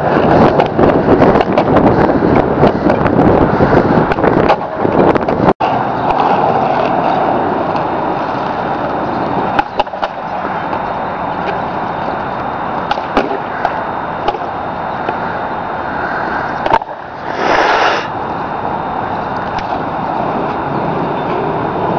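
Skateboard wheels rolling over concrete and asphalt, loud and rough for the first few seconds, then steadier. Sharp clacks of the board are scattered through it.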